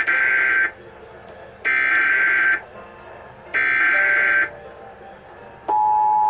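Emergency Alert System SAME header data burst, sent three times: three bursts of warbling digital tones, each about a second long and about a second apart, encoding a Required Monthly Test. Near the end the steady two-tone EAS attention signal begins.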